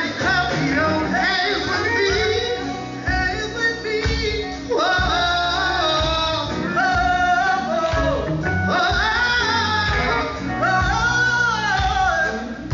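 Male gospel quartet singing live with a full band of electric guitar, bass, drums and keyboard. A lead voice slides and bends between notes over backing voices and a steady band groove.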